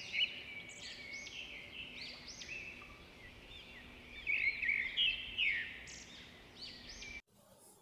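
Recorded birdsong played through a smartphone's loudspeaker: many quick, overlapping chirps, which cut off abruptly near the end.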